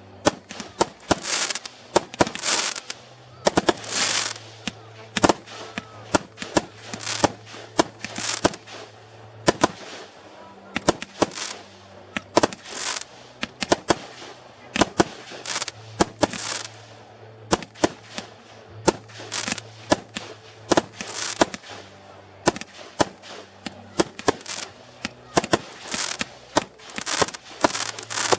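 Fireworks display: a rapid, irregular series of sharp bangs, many close together, each followed by fizzing and crackling as the shells burst overhead.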